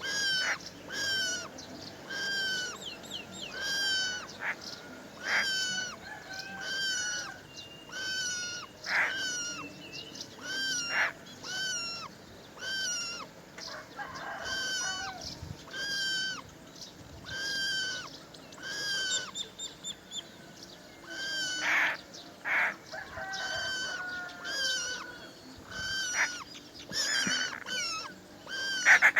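A bird calling a short call that rises and then drops, repeated about once a second, with louder harsh rasping calls now and then and a burst of them near the end.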